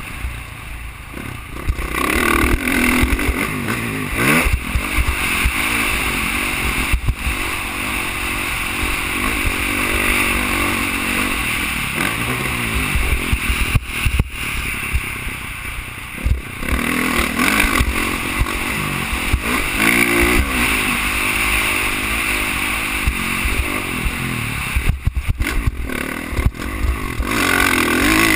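Dirt bike engine revving up and falling back in repeated cycles as it is ridden hard around a motocross track, with wind rumbling over a helmet-mounted camera's microphone. The sound drops out sharply for an instant about halfway through and again near the end.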